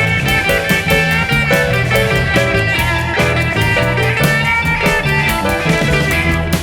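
Background music: a guitar-led instrumental track with a steady drum beat.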